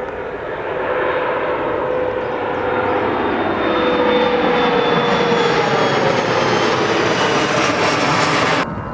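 Airliner engines passing close by, loud and building over the first few seconds, with whining tones that slowly fall in pitch as it goes past. The sound cuts off suddenly near the end.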